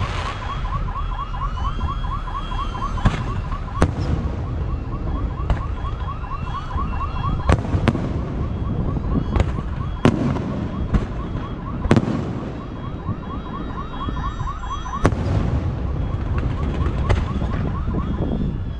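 A car alarm sounding in fast, evenly repeated rising chirps, about five a second. Sharp firework bangs crack out over it every few seconds.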